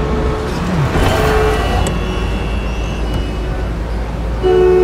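Steady low rumble of a car and street traffic. Near the end a car horn starts sounding, a steady two-tone honk.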